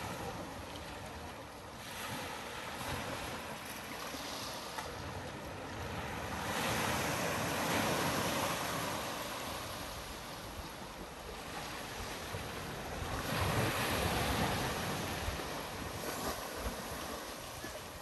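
Small surf breaking and washing up onto a sandy beach, a steady wash that swells louder twice, about seven seconds in and again about fourteen seconds in.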